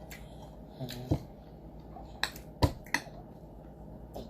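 Sharp mouth smacks and clicks of eating, about six spread through, the loudest near the middle, with a brief low hum about a second in.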